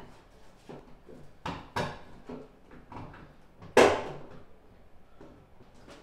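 Hands working at a Toyota Sienna's rear hatch around the license-plate recess and camera wiring: scattered light clicks and taps, with one sharp knock about four seconds in, the loudest.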